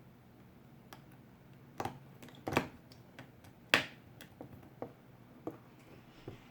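Scattered small sharp clicks and taps of a screwdriver and tiny screws being handled on the metal connector cover plate inside an iPhone 7 Plus, about eight in all, the loudest about three and a half seconds in.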